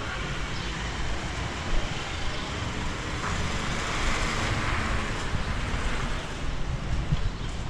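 Street traffic noise: a steady rush that swells about four seconds in, as of a vehicle passing, over a low rumble.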